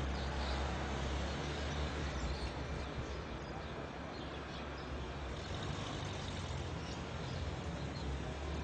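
Steady city background noise: a low rumble of distant traffic under an even hiss.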